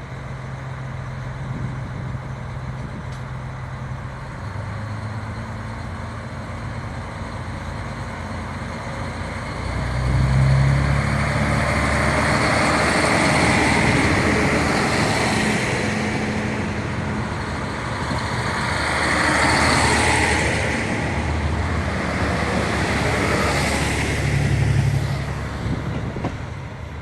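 KiHa 183 series diesel multiple unit: its diesel engines run at a steady low idle, then about ten seconds in they open up loudly as the train powers away. The engine and running noise stays loud, swelling a few times, before easing off near the end.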